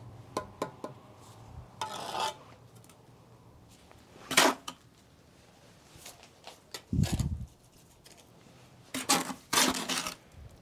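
Steel pointing trowel scraping and tapping as mortar is scooped and packed into a gap in brickwork: a string of short clicks and scrapes, with a dull thump about seven seconds in.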